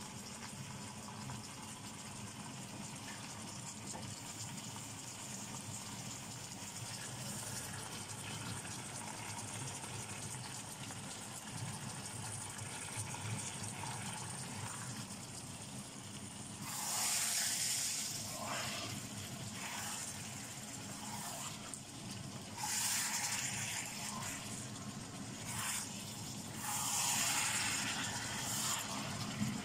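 Raw chicken pieces sizzling in a hot wok with oil and fried onion, a steady low sizzle that flares into several louder bursts in the second half as the pieces are stirred with a wooden spoon.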